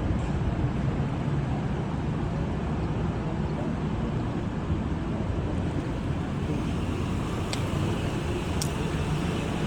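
Steady low rumble of a motor while underway, mixed with wind noise, and two brief clicks near the end.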